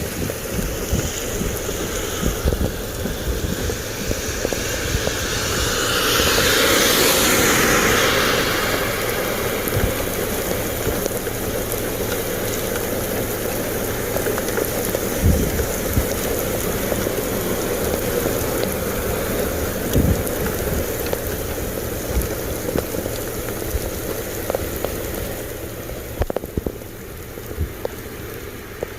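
Steady rain falling, a dense even hiss, swelling to a louder rush about six to nine seconds in. A couple of low thumps sound in the middle.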